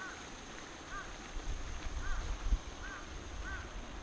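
A bird calling over and over, short arched notes repeated roughly once a second. A low rumble comes and goes partway through.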